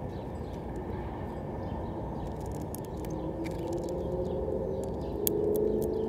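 Scattered sharp clicks of a male house finch handling and cracking sunflower seeds on a feeder tray, over a steady low rumble with a faint droning hum that slowly falls in pitch and grows a little louder near the end.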